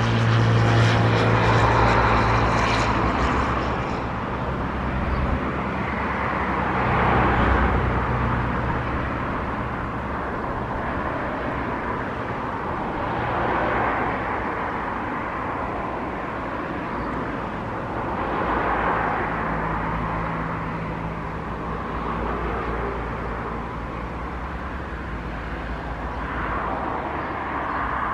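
Jet aircraft engine noise across the airfield: a steady hum and rumble, loudest in the first few seconds, then swelling and easing every few seconds.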